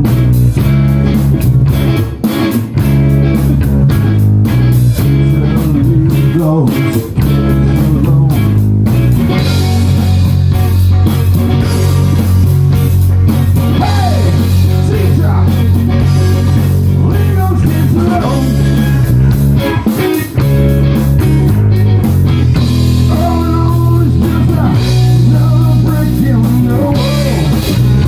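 Rock music with electric guitar, bass guitar and drum kit playing, with a steady beat.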